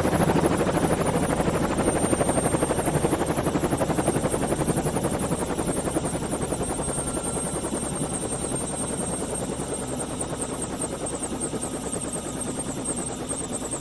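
A fast, steady mechanical chopping with a low hum beneath it, slowly fading away.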